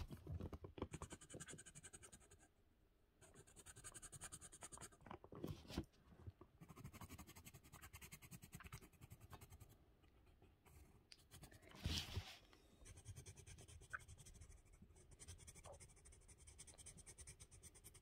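Faint, rapid scratching strokes of a drawing tool on paper. The strokes come in runs broken by short pauses, with a brief louder scrape about twelve seconds in.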